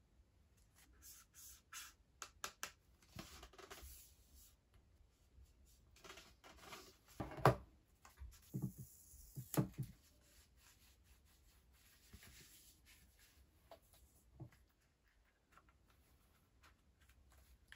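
Hands handling cardboard packaging and a phone case on a desk: rustling and scraping with a few sharp clicks and knocks, loudest in the middle.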